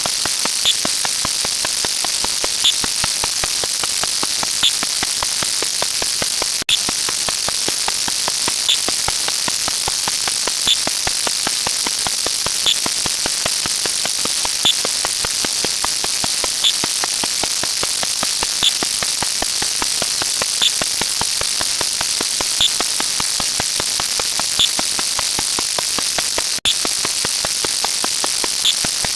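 Steady crackling static hiss with a short tick about every two seconds. It cuts out for an instant twice.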